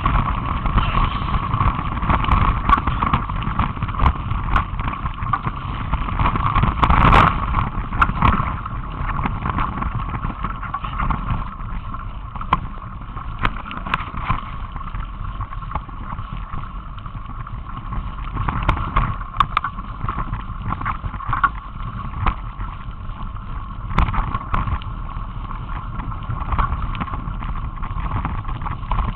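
Mountain bike ridden along a trail: continuous rumble and rattle from the tyres and frame, with frequent sharp knocks over bumps and a steady high buzz. The hardest knocks come about seven seconds in.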